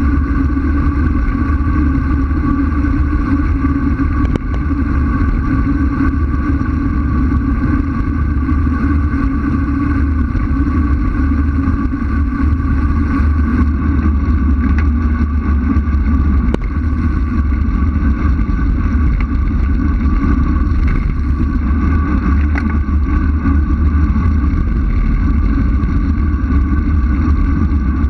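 Steady wind noise buffeting a bike-mounted action camera's microphone on a fast road-bike descent, mixed with road rumble from the tyres. A few sharp knocks from bumps in the road cut through it.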